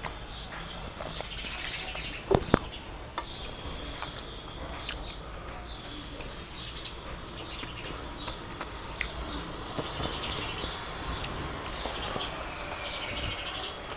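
Eating rice and fish by hand from a steel plate: fingers working the food on the plate, and wet chewing and lip-smacking sounds. There are two sharp clicks a little over two seconds in.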